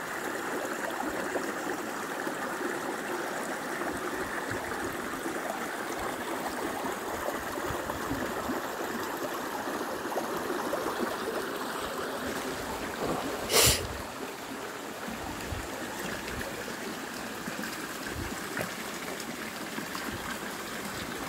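Shallow rocky stream running steadily over and between boulders, a continuous even sound of flowing water. One brief loud noise cuts in about two-thirds of the way through.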